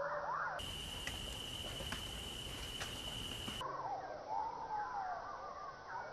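Small birds chirping and twittering in quick short calls that slide up and down. For about three seconds in the middle the chirps give way to a steady high whine over a hiss, with a few faint clicks, and then the chirping comes back.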